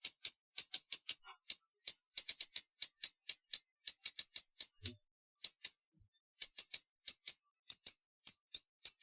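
Hummingbird giving rapid, high-pitched chip calls in quick runs of several notes, with short pauses between runs.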